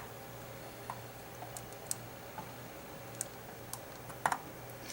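A few scattered light clicks and taps, irregularly spaced, over a faint steady hum.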